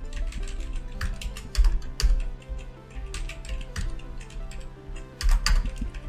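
Computer keyboard typing and clicking in irregular bursts as ladder logic instructions are entered, over steady background music.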